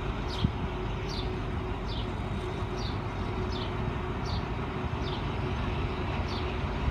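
Alsthom diesel-electric locomotive running slowly as it pulls its train out, a low steady rumble with a faint continuous hum. Over it, a bird repeats a short high descending chirp about two to three times a second.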